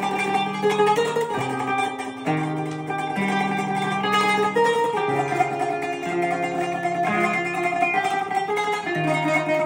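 Kanun, the Turkish plucked zither, playing a melody in quick plucked notes over held low notes that change every second or two.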